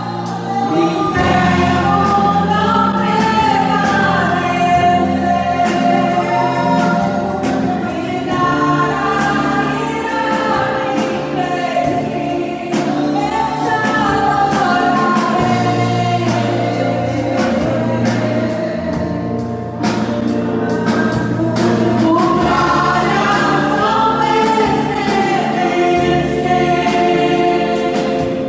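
Choir singing a Portuguese-language gospel worship song over instrumental backing with sustained bass notes.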